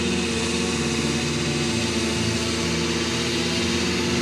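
New Holland T6080 tractor engine running steadily under load while pulling a Major slurry tanker.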